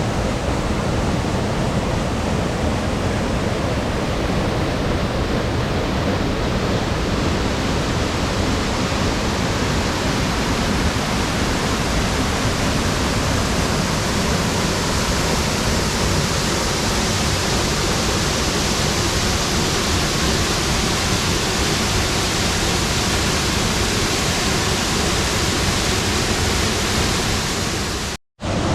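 Waterfall rushing steadily, a loud even wash of water noise; it cuts out for a moment near the end.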